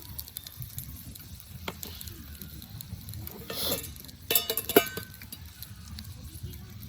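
Campfire crackling with scattered small pops. A short hiss comes about three and a half seconds in, then a quick run of ringing clinks just after.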